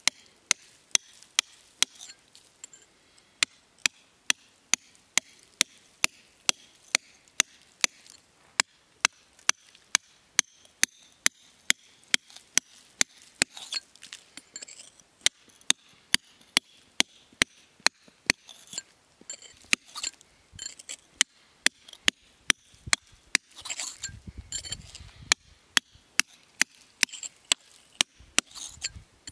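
Hammer striking a hand chisel into a stone block, a steady run of sharp strikes about two to three a second as the stone surface is chipped away.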